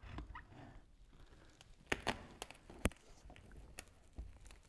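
Faint, scattered clicks and knocks of tyre levers against a wheel rim as a tyre bead is prised off the rim, the sharpest knock a little before three seconds in.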